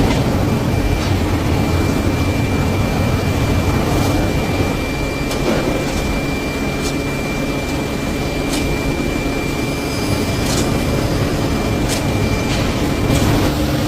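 Steady mechanical running noise with a low rumble, a thin high whine held through most of it, and a few sharp clicks.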